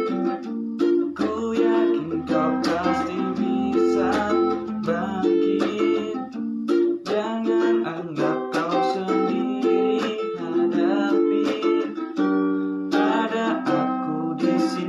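Music played on plucked strings, ukulele- or guitar-like, with notes and chords picked in quick succession.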